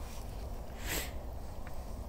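Water splashing once as a carp in a landing net is lowered into the lake, with a steady low rumble underneath.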